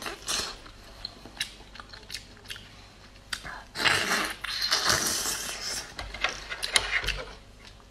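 A person eating raw oysters: wet chewing with sharp mouth clicks, and a louder hissing slurp about four seconds in as an oyster is sucked off its half shell.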